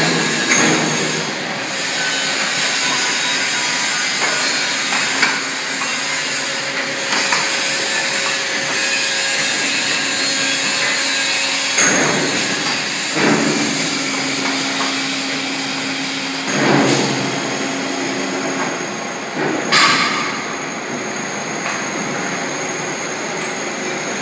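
Pneumatic clamp cuber for concrete blocks running: steady machine noise with air hiss and a few sudden loud bursts several seconds apart, and a steady hum for a few seconds in the middle.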